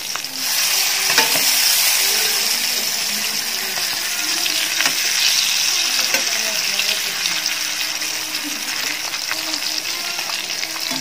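Masala-coated boiled eggs sizzling steadily as they fry in hot oil in a pan, with a few light clicks of a perforated metal slotted spoon as the eggs are turned.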